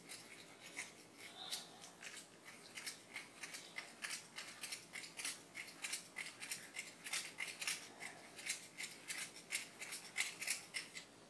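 A block of hard Pecorino Romano cheese rubbed on a small handheld grater: a long run of faint rasping strokes, two or three a second.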